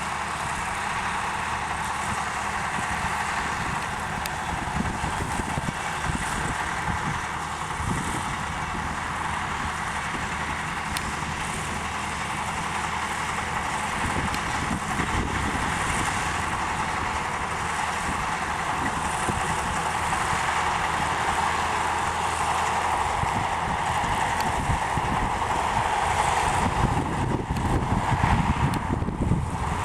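John Deere 4430 tractor's diesel engine running steadily, with wind buffeting the microphone near the end.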